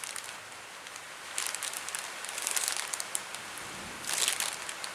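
Plastic bag of model-kit chrome parts crinkling as it is handled, in three short bouts: about a second and a half in, near three seconds, and just after four seconds.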